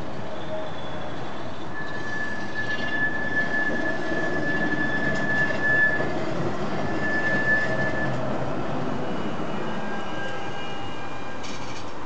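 An MVG R2.2 low-floor tram's wheels squealing against the rails as it rounds a tight turning loop. A high steady squeal starts about two seconds in and holds for about four seconds, breaks briefly, then returns. Fainter squeals follow over the rumble of the tram rolling past.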